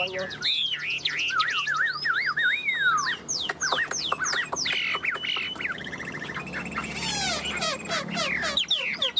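Chinese hwamei singing a continuous, varied song of whistled notes that swoop up and down, with fast runs of rapidly repeated notes in the middle.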